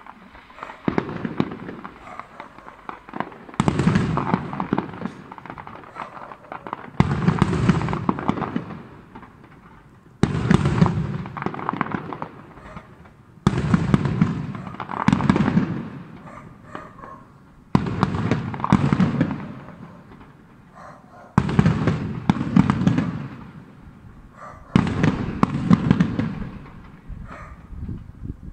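Fireworks display: a sudden loud bang about every three and a half seconds, each followed by a crackle of smaller bursts that dies away.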